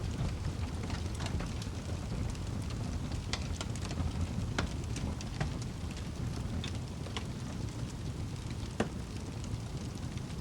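Wood fire in a fireplace crackling: frequent sharp pops and snaps over the steady low rumble of the flames, with one louder pop near the end.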